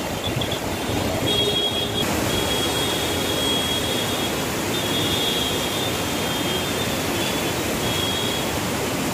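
Very heavy rain pouring down: a steady, even hiss.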